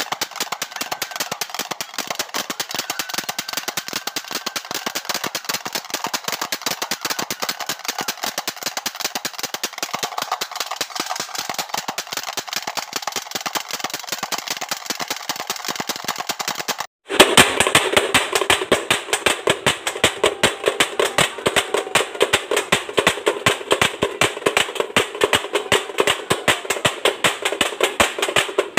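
Fast drumming: rapid sharp drum strokes, many a second, keeping an even rhythm. About two-thirds of the way through it breaks off for a moment and resumes louder.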